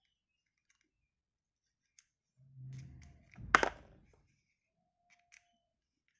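Light metal clicks of a small screwdriver working at the housing of a Shimano XTR M970 trigger shifter as it is being taken apart, with one sharp, loud clack about three and a half seconds in.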